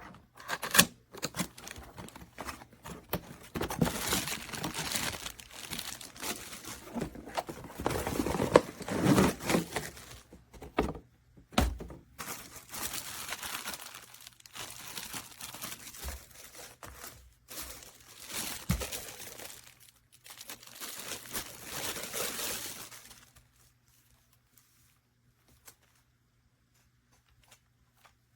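Packaging being crinkled and torn open in irregular crackling bursts with a few sharp knocks, stopping about 23 seconds in.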